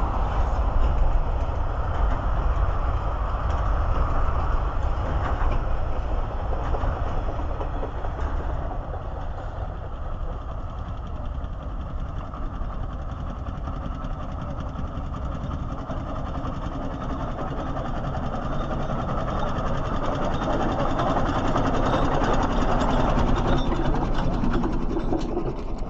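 Container freight train wagons rumbling past on the rails, dying away as the train recedes. Then a Charles Burrell steam traction engine approaches along the road, its running growing louder as it comes close near the end.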